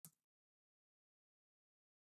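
Near silence: the audio drops out completely, with only a brief trailing sound at the very start.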